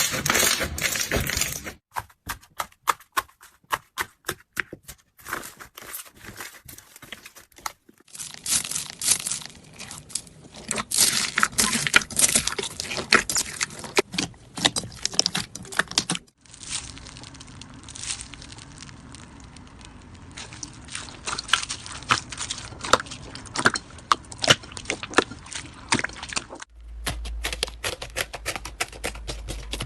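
Slime being squeezed and pressed by hand, giving runs of crackling clicks and pops. The sound changes abruptly several times as one short clip cuts to the next.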